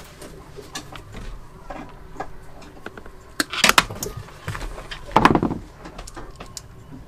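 Hands rustling and clicking through the wiring and connectors behind a sailboat's electrical switch panel as a cable is worked through. There are louder rustling clatters about three and a half seconds in and again a little after five seconds.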